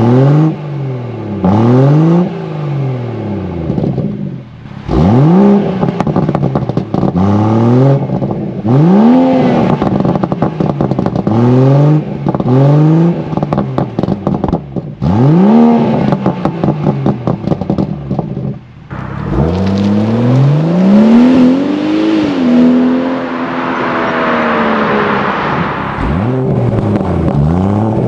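BMW M140i's turbocharged 3.0-litre B58 straight-six, with an HJS 300-cell downpipe, Akrapovič slip-on and petrol particulate filter, revved repeatedly at standstill in Comfort mode. Quick throttle blips come first, then longer revs that rise and fall, and one rev is held for several seconds about two-thirds through before dropping back.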